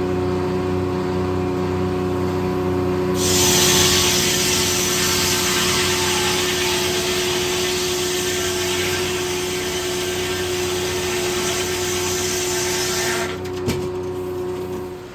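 Corley circle sawmill running steadily. About three seconds in, the circular blade cuts into a log: a loud, even cutting noise that lasts about ten seconds and then stops, followed by a few clicks.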